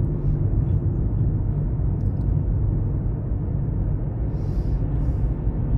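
Steady low rumble of a car's road and engine noise, heard inside the moving car's cabin.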